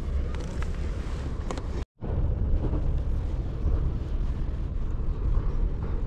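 Wind buffeting the microphone: a steady low rumbling noise, broken by a split-second dropout about two seconds in.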